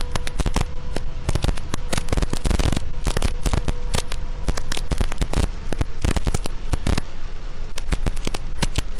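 Heavy rain pelting a vehicle's windshield and roof, heard from inside as a dense, steady crackle of countless drops.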